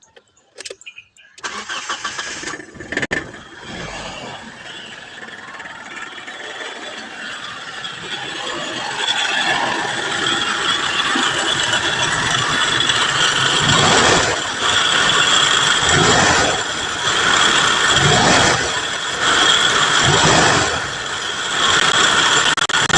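Mitsubishi Adventure gasoline engine starting after about a second and a half, running and slowly building, then revved repeatedly about every two seconds near the end without dying. It is now running properly after its dirty fuel injectors were cleaned.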